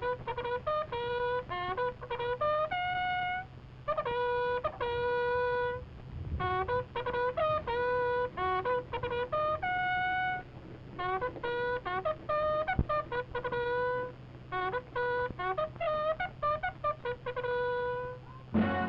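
A lone bugle sounding a call: bursts of quick notes broken by longer held notes, all on a few fixed notes of the bugle's natural series, over a steady low hum of an old film soundtrack. Fuller band music comes in at the very end.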